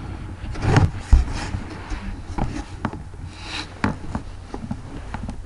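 Handling noise of a hand-held camera: rubbing and scraping against bedding, with two loud knocks about a second in and scattered light knocks later, over a steady low hum.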